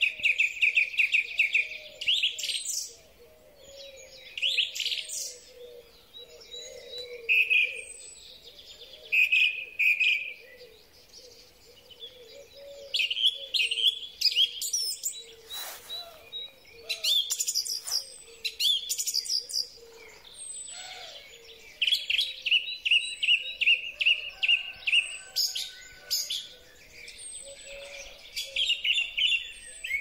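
Song thrush singing: loud phrases of rapid, sharp notes and whistles, some phrases given again straight after, with short pauses between phrases.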